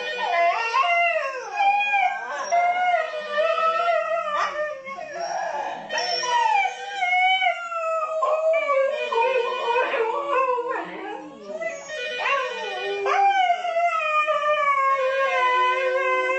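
Two Siberian huskies howling together: long wavering howls that slide up and down in pitch and overlap one another, broken by short rising cries.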